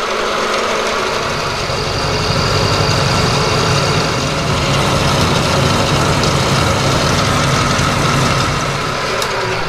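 Milling machine running steadily with a half-inch end mill taking a light finish pass in a 4140 steel pocket, a constant machining drone.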